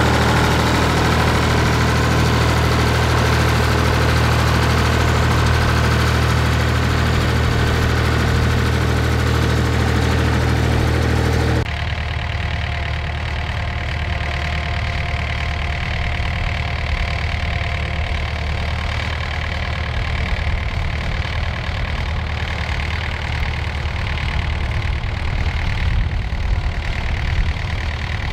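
Massey Ferguson 135 tractor engine running steadily while pulling a plough; about twelve seconds in the sound switches abruptly to a David Brown 900 tractor engine ploughing, lower and duller, with an uneven low throb.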